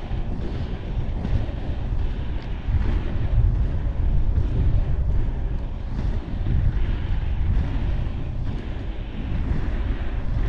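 Strong wind buffeting an action camera's microphone on a moving inline skater: a heavy low rumble, with a hiss that swells and fades about once a second.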